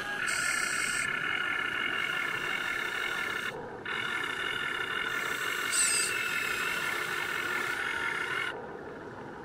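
Electric drive motors and gearboxes of a Huina 1580 RC excavator whining steadily as the boom and arm work. The whine stops briefly about three and a half seconds in, then resumes and cuts off shortly before the end.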